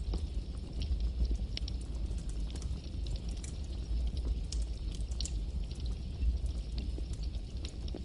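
Campfire burning, with a steady low rumble and frequent sharp crackles and pops from the burning wood.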